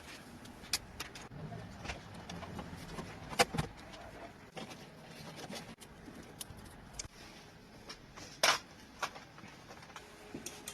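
Scattered small clicks and taps of computer parts and tools being handled, with a louder double knock about three and a half seconds in and a short scrape about eight and a half seconds in.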